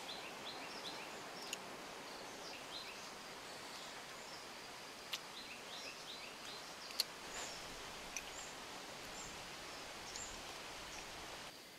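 Faint forest ambience: a steady hiss with small birds calling in short runs of quick chirps, and a few soft, sharp clicks.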